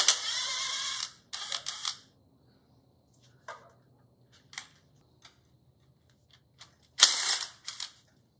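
Air-powered wrench running in short bursts of about a second, twice at the start and once near the end, spinning out the oil pan bolts on a Ford flathead V8. Light metal clinks come in between.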